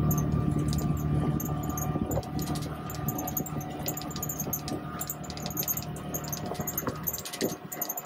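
Side-by-side utility vehicle's engine running steadily while driving, mixed with wind noise and light rattling. The low engine note drops away briefly near the end.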